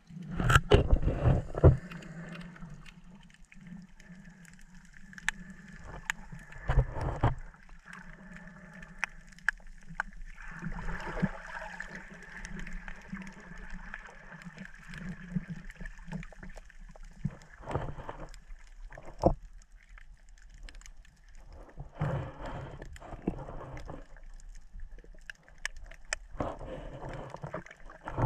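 Muffled underwater sound picked up through a waterproof camera housing: a low steady hum with scattered clicks and knocks, and repeated bursts of bubbling, rushing water noise, loudest in the first couple of seconds.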